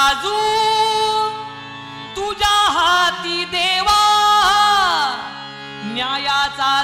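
Harmonium playing a melody over held drone notes, with a voice singing long notes that slide down in pitch. Hand-drum strokes come in near the end.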